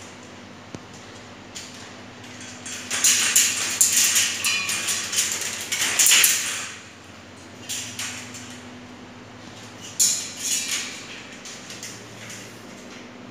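Metal dog cage rattling and scraping in two spells, a long one starting about two and a half seconds in and a shorter one about ten seconds in.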